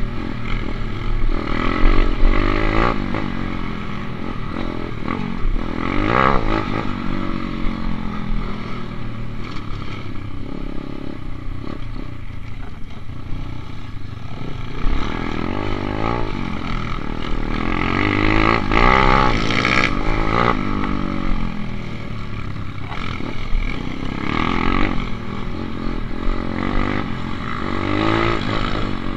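Dirt bike engine revving hard as it is ridden over a motocross track, its pitch rising and falling again and again with throttle and gear changes.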